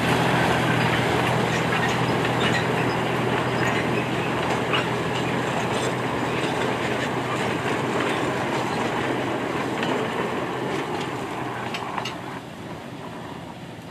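Narrow-gauge sugar-cane train of loaded lori rolling past, its wheels clacking and rattling over the track. The locomotive's engine hum fades out in the first few seconds, and the whole sound falls away near the end as the train moves off.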